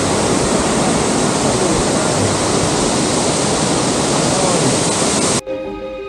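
Rushing water of a waterfall: a loud, steady roar that cuts off abruptly about five seconds in, where soft music takes over.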